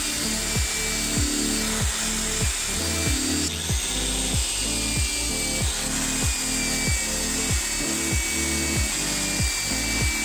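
Electric drill spinning a wire-brush wheel against a knife's steel tang to strip rust: a continuous high scratching hiss with a faint whine. Background music with a steady beat plays under it.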